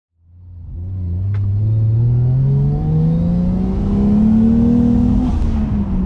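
Toyota Chaser's 1JZ-GTE turbocharged inline-six accelerating, heard from inside the cabin: the engine note fades in and climbs steadily in pitch for about five seconds, then falls away near the end.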